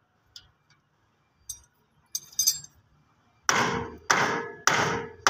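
A few light metallic clinks, then from about three and a half seconds in, evenly spaced ringing metal-on-metal blows, about one every 0.6 s: a tool striking the turbocharger fittings of a 260 tractor while the turbo is being removed.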